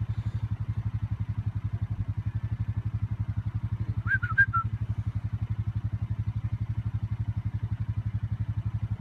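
A small engine idling steadily, a low even pulsing at about eight or nine beats a second, with a few short high chirps about four seconds in.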